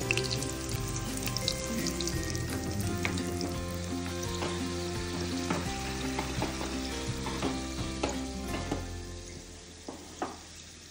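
Ghee sizzling and crackling around stuffed flatbread dough shallow-frying in a pan, over soft background music with held chords. Both fade out over the last couple of seconds.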